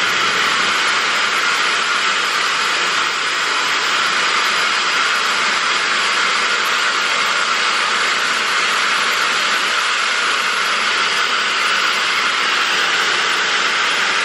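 FHI Heat Versa Sphere Pro Air blow dryer running steadily, a loud even rush of air from its motor and fan. It is switched to the middle power notch, where the heat settings can still be changed.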